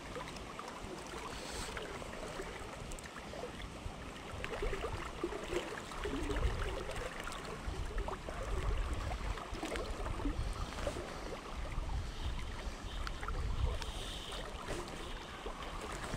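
River water flowing and lapping against a wading angler, with wind gusts rumbling on the microphone from about six seconds in.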